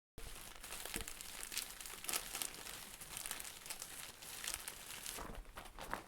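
Dense crinkling and crumpling, as of material being scrunched in the hands, full of sharp little crackles. It starts abruptly just after the beginning and thins to separate crackles near the end.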